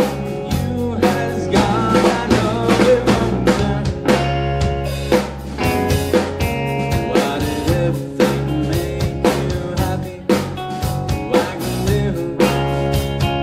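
A rock band playing live: electric guitar over a drum kit keeping a steady beat, with sustained and bending guitar notes.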